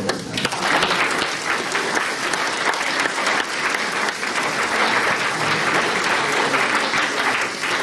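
Audience applauding: a roomful of people clapping, swelling up within the first second and then holding steady.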